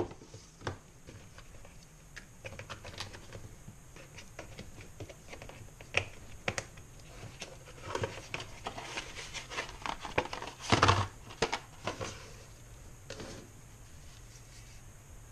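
Unboxing handling noise: a rugged power bank being lifted out of its cardboard box and plastic insert tray, with scattered taps, clicks and rustles of packaging. A louder cluster of clatter comes about two-thirds of the way through.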